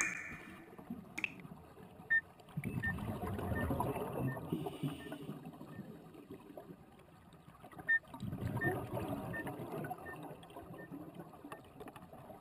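Underwater sound of a scuba diver's exhaled breath bubbling out of a regulator: two bubbling bursts, each about two seconds long, about five seconds apart, the quiet between them being the inhalation.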